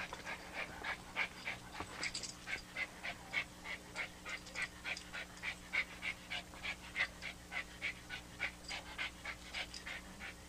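Small dog panting quickly and steadily, about three to four breaths a second.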